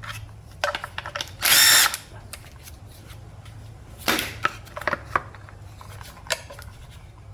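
Cordless power driver whirring in short bursts, the longest about a second and a half in, as it spins out the bolts holding the automatic transmission's oil filter. Light metallic clicks follow later on.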